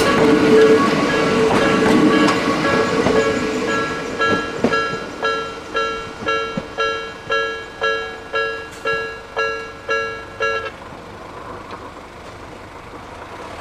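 Railway level-crossing warning bell dinging about twice a second, each ding fading away, with the noise of a passing train over it in the first few seconds. The bell stops about eleven seconds in.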